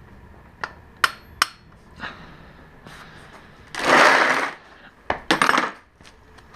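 Metal hand tools and sockets clinking: a few sharp clicks with a brief ring, then two longer bursts of metal rattling and scraping about four and five and a half seconds in, the first the loudest. This is the handling of a 12mm socket used to start punching out a motorcycle's front axle.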